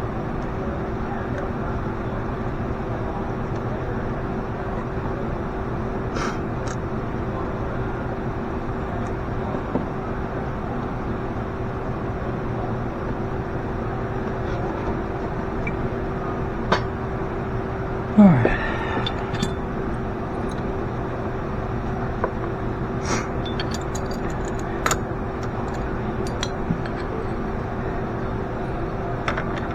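Steady machine hum with a constant tone, with scattered sharp clicks and clinks of metal tools and a brief sweeping squeak about two-thirds of the way through.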